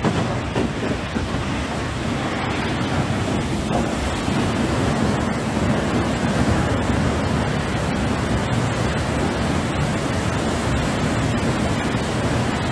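Muddy, silt-laden water gushing from a dam gate just opened after years of storage, a steady, deep rush as the built-up mud is flushed out.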